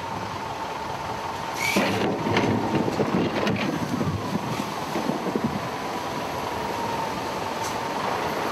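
Wheel loader's engine running with a steady high tone, while rock and boulders tip from its bucket into the river with a run of knocks and clatters about two to three and a half seconds in.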